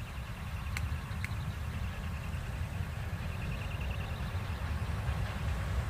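Low, steady rumble of 2TE116 diesel locomotives approaching, growing slightly louder. Over it runs a faint, rapid high-pitched chirping, with two sharp clicks about a second in.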